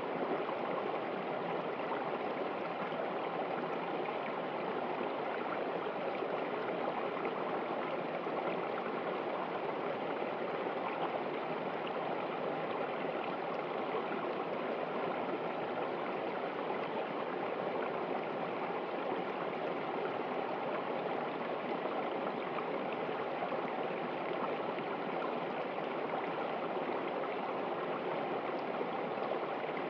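Mountain stream flowing steadily over rocks, a continuous even rush and gurgle of water.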